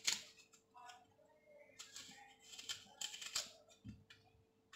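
An apple being peeled by hand: a series of short, light scrapes as the blade strips the skin, stroke by stroke.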